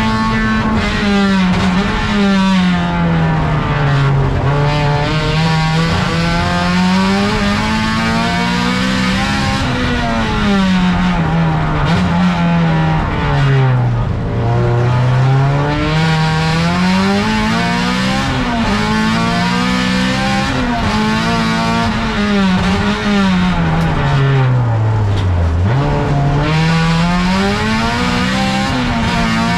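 Race car's engine heard from inside the stripped cabin under hard driving, the revs climbing and falling over and over. Near the end the revs drop low and then climb again.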